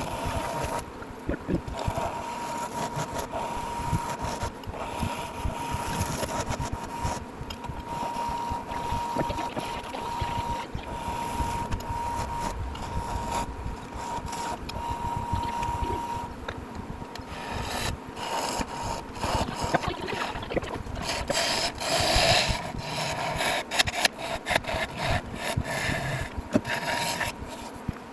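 Wood lathe turning a hickory blank while a bowl gouge cuts it: irregular scraping and chatter of the tool on the spinning wood, with a steady high whine that is clearest in the first half. The cutting grows louder near the end.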